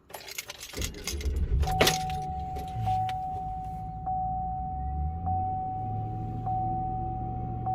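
Keys jangle in the ignition, then the car's engine starts about a second in and keeps running. From about two seconds in, a steady dashboard warning chime tone sounds, with a faint click repeating about once a second.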